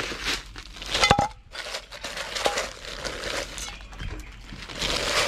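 A thin plastic bag rustling and crinkling as it is handled. A sharp metal clink with a short ring comes about a second in, and a lighter clink follows a little later.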